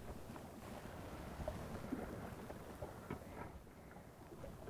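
Faint background of wind and water around a small fishing boat, with a few light clicks and rustles.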